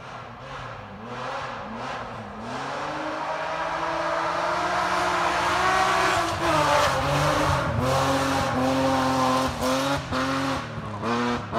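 Rally car engine on a gravel stage, heard approaching and growing louder over the first six seconds. It revs up and drops back again and again through gear changes. Near the end come several quick lifts and re-accelerations before the sound cuts off abruptly.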